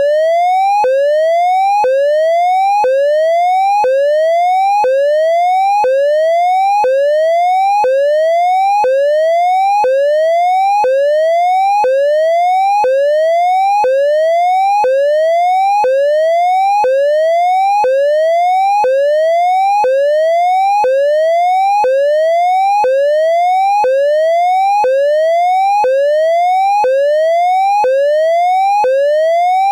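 Synthesized imitation of an ASC digital electronic siren controller's hazard tone, made from a triangle wave: a pitch that rises over about a second, snaps back down and rises again, repeating steadily about once a second.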